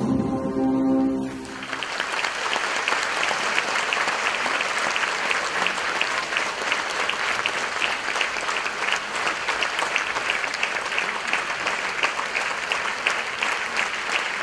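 The dance music ends on its last chord about a second and a half in, and an audience breaks into steady applause, many hands clapping.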